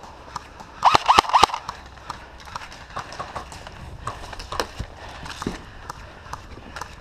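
Footsteps crunching through leaves and brush, with a brief loud cluster of about four sharp knocks about a second in.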